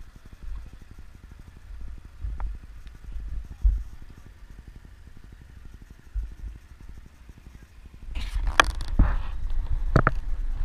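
Low rumble of bass boats' outboard motors idling, with wind buffeting the microphone. About eight seconds in a louder, rougher stretch with a few sharp knocks lasts a couple of seconds.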